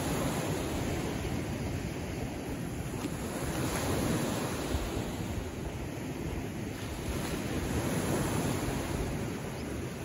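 Small sea waves washing in over a rocky shoreline, the surf rising and falling in slow swells.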